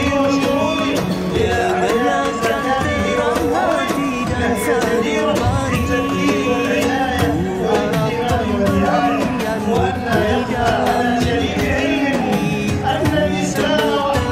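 Background music: a melodic song in a Middle Eastern style, with winding melody lines over a steady fuller low end.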